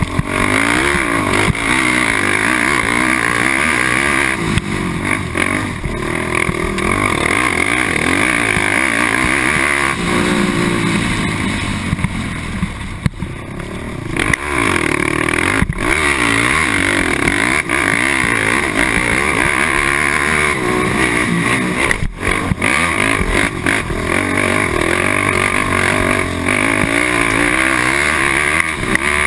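Honda TRX450R quad's single-cylinder four-stroke engine racing on a motocross track, revs rising and falling through the gears. The throttle eases off briefly about halfway through for a corner, then it pulls hard again.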